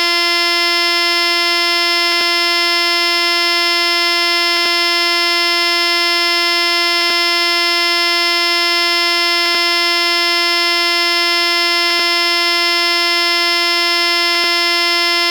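A synthesized buzzy electronic tone held at one steady pitch, with a short click about every two and a half seconds where the sound loops.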